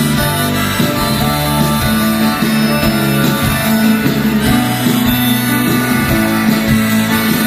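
Live rock band playing an instrumental break, with guitar to the fore.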